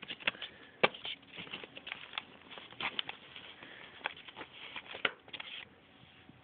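Handling noise as a small plastic RF transmitter is worked out of a foam box insert: irregular clicks, taps and scraping rustles that stop about five and a half seconds in.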